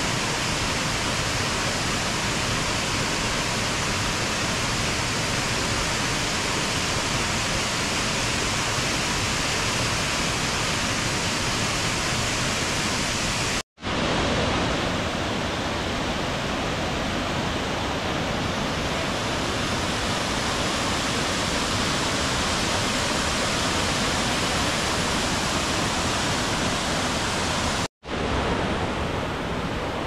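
Waterfall: a steady rush of falling water, dropping out for an instant twice, about halfway and near the end.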